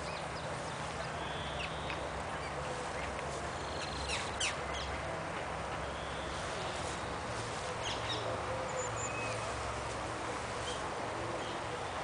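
Outdoor ambience: scattered short bird calls and chirps over a steady background hiss and low hum.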